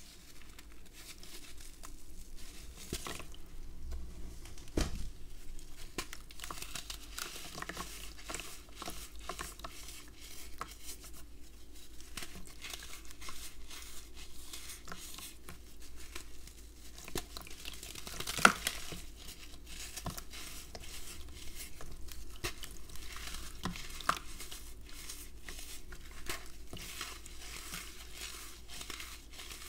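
Red sand blocks crumbled by hand into a basin of water: dense gritty crackling and trickling as the sand falls in, with fingers swishing and stirring the muddy water. A sharp snap stands out about two-thirds of the way through.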